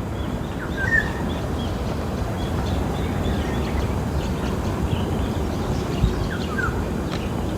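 Steady low outdoor rumble with a few faint bird chirps, a short one about a second in and a couple more near the end, and a soft low thump about six seconds in.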